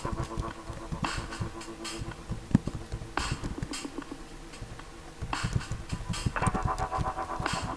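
Computer keyboard typing, irregular key clicks and taps, over background synthesizer music that drops away about a second in and comes back about five seconds in.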